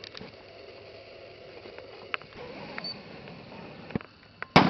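A single loud shotgun shot about four and a half seconds in, with a short echo trailing after it. Before it there is only a faint, steady background with a few small clicks.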